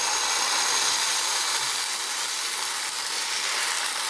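Dosa batter sizzling steadily on a hot, lightly oiled non-stick pan as it is ladled on.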